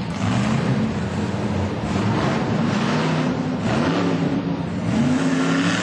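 Tough truck's engine at full throttle, the revs climbing and dropping back again and again as the driver works the throttle through the course.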